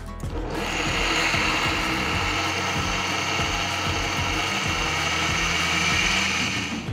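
KitchenAid Pro Line Series blender with its 3.5-peak-horsepower motor running on the soup program, blending pea soup in the thermal control jar. It spins up about half a second in to a steady high-speed whir with a high whine.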